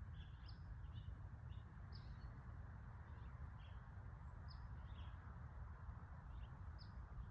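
Faint chirping of small birds: short high notes, irregular, about two a second, over a low steady background hum of the outdoors.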